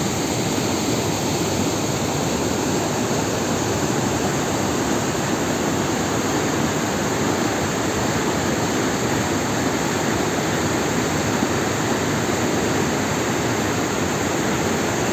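A steady, even rushing noise with no changes.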